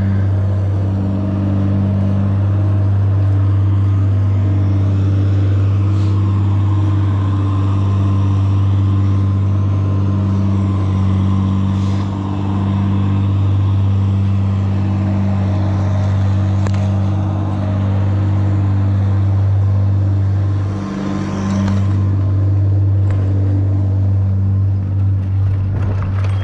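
Steady low hum of a running motor vehicle engine, holding one pitch, with a short dip in level about 21 seconds in.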